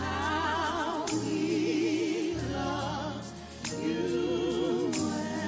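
Gospel choir singing long held notes with wide vibrato over a live band, with sustained low bass notes and steady cymbal ticks from the drum kit.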